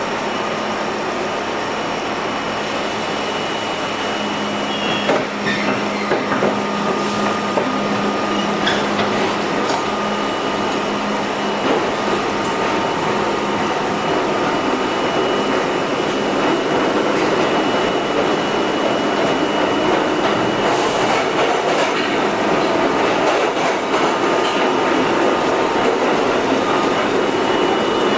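R32 subway car running through the tunnel, heard from inside the car. A steady rumble of wheels and running gear grows slowly louder as the train picks up speed, with scattered clacks over the rail joints and two brief high squeals from the wheels.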